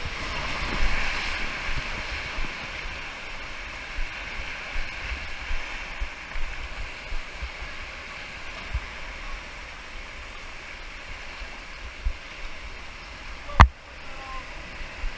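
Rushing whitewater of a river rapid, a steady hiss, with irregular low bumps on the microphone and one sharp knock near the end.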